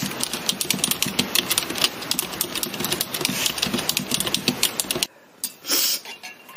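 Rapid clicking of typing on a computer keyboard, stopping suddenly about five seconds in.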